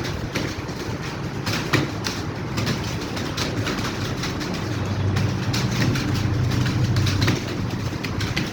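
Many computer keyboards clattering at once as a roomful of typists types at speed: a dense, continuous stream of key clicks.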